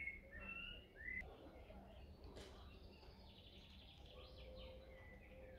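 Faint woodland birdsong: a few short whistled chirps, then a rapid trill about halfway through.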